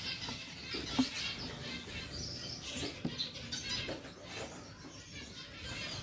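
Gouldian finches inside a plastic shipping box giving many short, high chirps, with a few light knocks from the birds hopping and fluttering against the perches and plastic walls.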